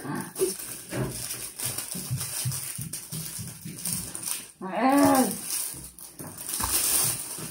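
Plastic packaging rustling and crinkling as items are pulled out of a plastic mailer bag and unwrapped, with a few soft knocks. About five seconds in, a single short wordless voice sound.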